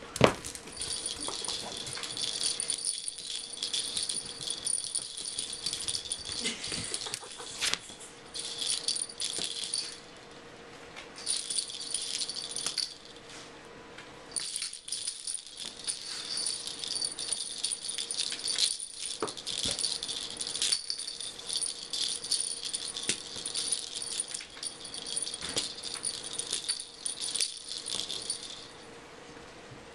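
A rattling, jingling cat wand toy being shaken in spells of several seconds with short pauses, over scattered knocks and scuffles from a skunk and a cat playing. A sharp knock right at the start is the loudest sound.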